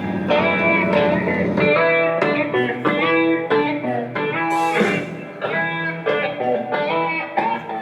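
Blues-style electric guitar music playing back through a newly installed golf cart radio and its speakers, being tested with a phone as the source.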